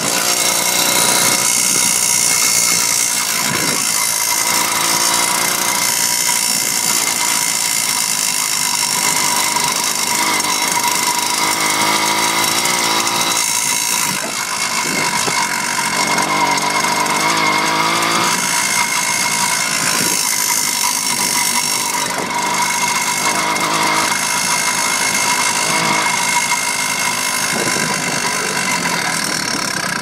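Two-stroke motorized-bicycle kit engine running on the move, its speed rising and falling several times as the throttle is worked, with the rapid "tatatatatat" rattle the rider hears especially when backing off the throttle; where in the motor it comes from is unknown.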